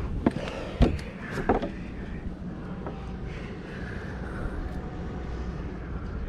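Wind buffeting the microphone, a steady low rumble, with a few sharp clicks and knocks in the first second and a half, the loudest just under a second in and again about a second and a half in.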